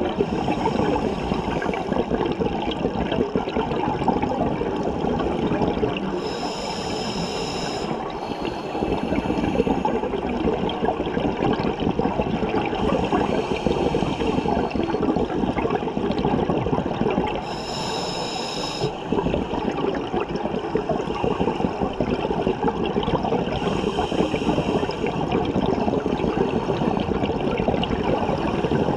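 Scuba diver breathing through a regulator underwater: a hissing inhalation every few seconds, with a steady rushing bubble noise of exhaled air in between.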